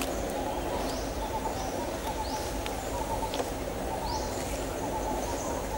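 Steady low background noise with a bird giving short rising chirps about once a second, and a couple of faint clicks.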